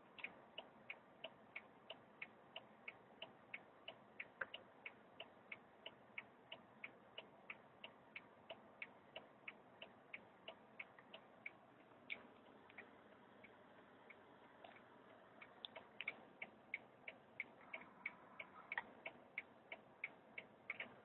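Faint, regular clicking, about three sharp clicks a second, with a pause of a few seconds midway before the clicking resumes less evenly.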